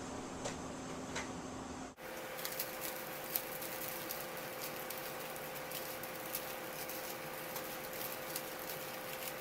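Steady room hum with scattered light clicks and taps, some in quick runs; the hum changes pitch at an abrupt cut about two seconds in.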